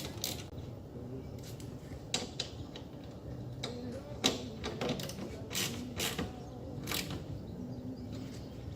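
Hand tools clicking and knocking against the metal of a car door while the window regulator's mounting bolts are worked on: scattered sharp clicks, about seven of them, with pauses between.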